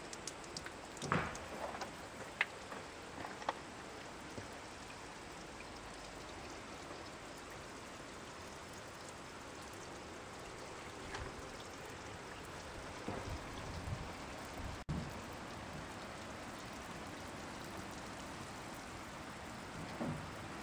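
Gravity-fed rainwater shower running, water spraying and splattering onto a flagstone floor in a steady hiss. A few light knocks sound in the first seconds, there are low bumps later, and the sound breaks off for an instant about midway.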